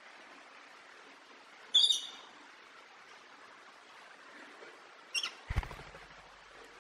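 Short high-pitched animal squeaks over a faint steady outdoor hiss: one about two seconds in, then two more just after five seconds, followed closely by a lower, rougher call.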